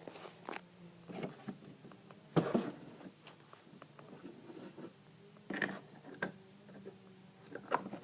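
Light knocks and rustles of small plastic toy figures being handled and set down, a handful of times, over a faint steady hum.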